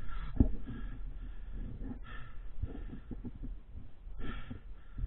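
A person breathing close to the microphone, a breath about every two seconds, with light knocks and rustling underneath.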